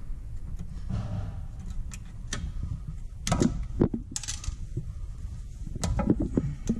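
Pliers working a cotter pin out of the lower ball joint's castle nut: scattered small metallic clicks and scrapes of tool on pin and nut, a few in quick clusters around the middle and near the end.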